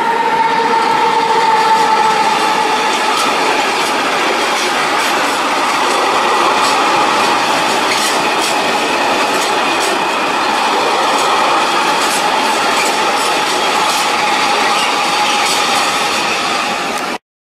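Freight train of tarpaulin-covered wagons rolling past at speed, wheels clicking irregularly over the rail joints, with a steady high whine running over the rumble of the wagons.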